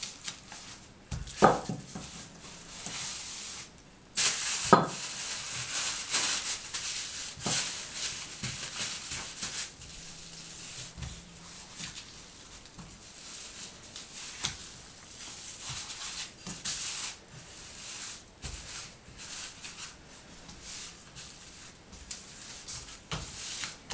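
Cellophane bag crinkling and rustling as a slab of butter inside it is rolled flat with a wooden rolling pin and pressed and smoothed by hand into an even rectangle. Two sharp knocks stand out, about one and a half and five seconds in.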